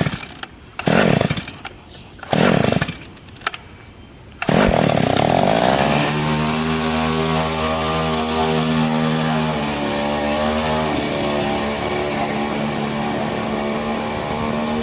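Small 50cc two-stroke chainsaw engine on a go-kart, turned over in several short bursts about a second apart, then catching about four seconds in and running on steadily and loudly at high speed.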